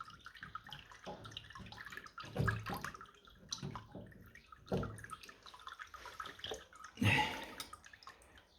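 Water splashing and sloshing, with several irregular knocks and clunks, the loudest near the end.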